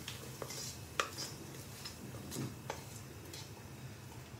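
Wooden spatula scraping and tapping against a steel pan as the tempering is pushed out into the curry: a few sharp clicks and knocks, the loudest about a second in.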